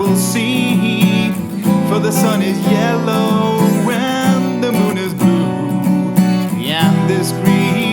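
Strummed acoustic guitar playing the song's accompaniment.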